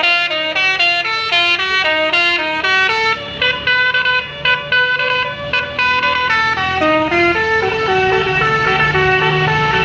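Multi-trumpet 'telolet' bus horn playing a fast tune of quick stepped notes, with a few short breaks in the middle. A low engine hum runs underneath and grows stronger in the second half.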